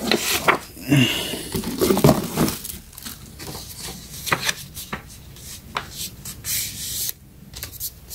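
Tissue paper rustling and crinkling as it is handled, busiest over the first two seconds or so, then a few scattered softer rustles and light taps.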